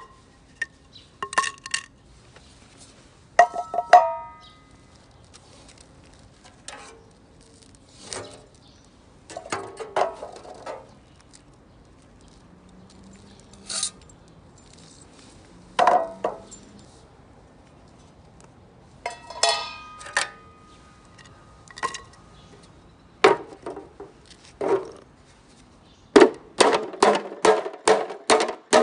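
Metal cookware being handled: scattered clinks and knocks, a couple of them ringing briefly, then a quick run of knocks near the end.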